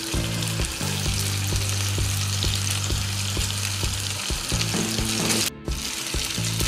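Pappardelle and crispy pancetta sizzling in rendered pancetta fat in a hot nonstick frying pan, a steady crackling hiss. Low background music runs underneath, and the sound cuts out for an instant about five and a half seconds in.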